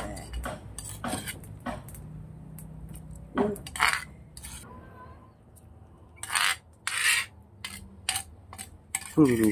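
Metal ladle scraping and clinking against a stone mortar as ground spice paste is scraped out, in a run of short sharp scrapes and taps with a few longer rasping strokes past the middle.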